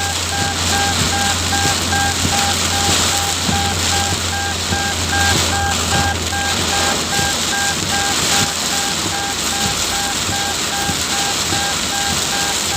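Heavy rain pouring down as a loud, steady hiss. A rapid, evenly repeating electronic beep runs through it, with a low steady hum that fades about nine seconds in.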